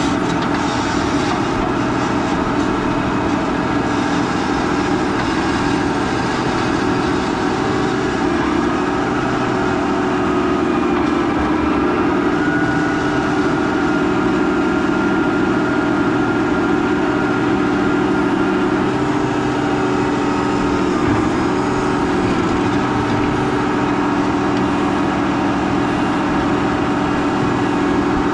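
Large farm tractor's diesel engine running steadily, with a faint high whine joining about twelve seconds in.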